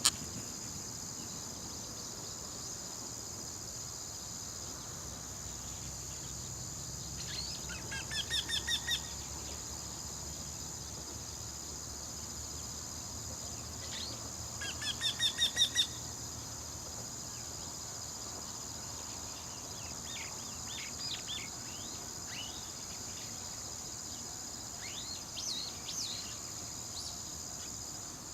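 Eurasian wryneck calling: two runs of about eight rapidly repeated ringing notes, each run growing louder, with a few short chirps later. A steady high insect drone runs underneath.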